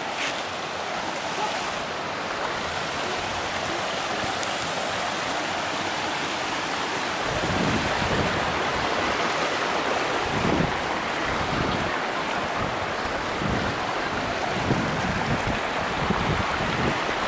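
Creek water rushing over rocks, a steady hiss. From about seven seconds in, wind buffets the microphone in irregular gusts.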